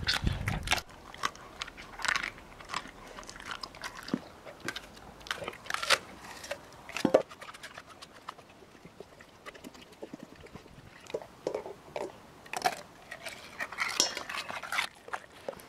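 Weimaraner eating raw chicken backs from a bowl: irregular bone crunches and wet chewing, with one sharper crunch about seven seconds in.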